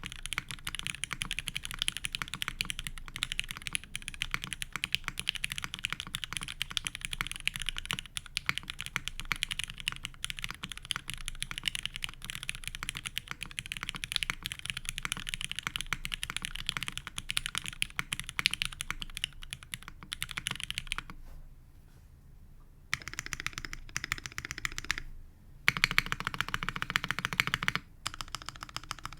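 Fast typing on a Sessantacinque custom mechanical keyboard with lubed MX Black linear switches in an aluminium top-mount plate and GMK keycaps: a steady stream of keystroke clacks. The typing pauses for about two seconds roughly two-thirds of the way through, then resumes.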